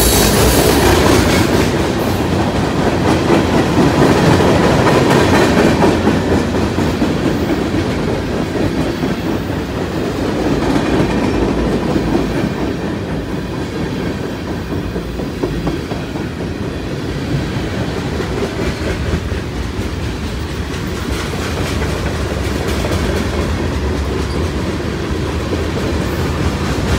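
BNSF manifest freight train's tank cars and boxcars rolling past close by, a steady rumble with wheels clacking over the rail joints.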